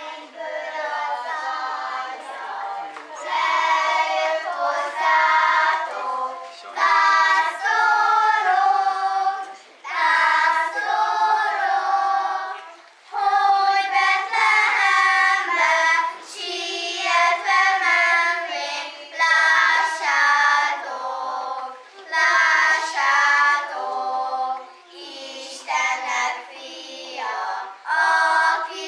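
A group of young children singing together, phrase after phrase, with short breaths between the phrases.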